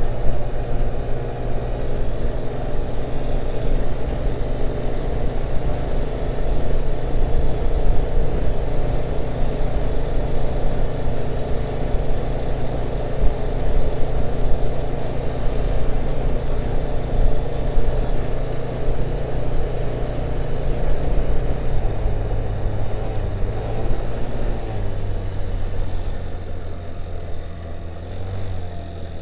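Motor scooter engine running steadily with a rough, rattly note: the strange noise the owner is asking about. The low tone shifts about three quarters of the way through and the sound drops a little near the end.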